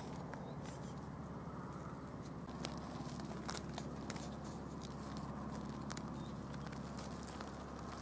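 Quiet outdoor ambience: a steady low hum with scattered faint clicks and crackles at irregular intervals.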